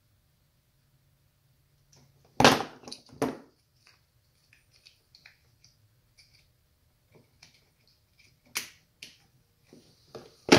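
Scattered clicks and knocks from hands handling an ATV's plastic electrical connectors and wiring. Two louder knocks come about two and a half and three seconds in, light ticks follow, and a few sharper clicks come near the end.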